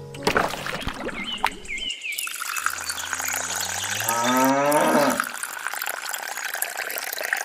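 A cow moos once, a long call rising in pitch, over the trickle of water poured from a small watering can into a trough.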